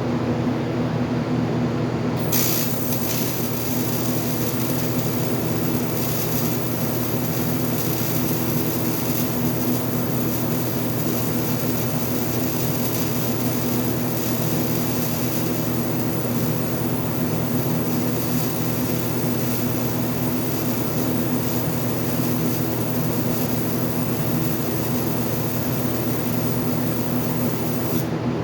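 TIG welding arc on an aluminum bracket: a steady hum with a high hiss that strikes about two seconds in and cuts off near the end.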